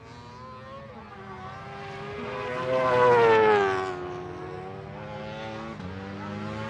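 Drag-racing car engine going past: a steady engine note that swells to its loudest about three seconds in, its pitch falling as it passes, then running on more quietly.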